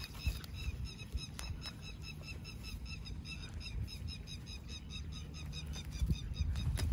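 Low rumbling and rustling as two Akita dogs nose through grass, with a fast, evenly repeated high chirping, about five a second, in the background.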